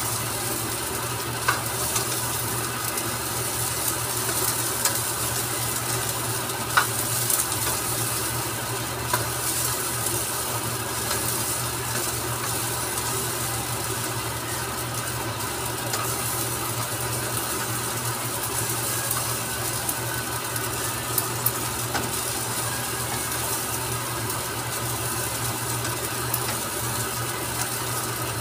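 Rice sizzling in a nonstick wok as it is stirred and turned with a slotted spatula. The spatula scrapes and now and then taps sharply on the pan, over a steady low hum.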